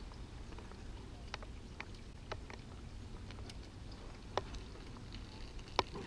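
Flat metal hive tool prying a propolis-glued honey super loose from the beehive: scattered small cracks and clicks, the two sharpest about four and a half and nearly six seconds in, over a steady low rumble.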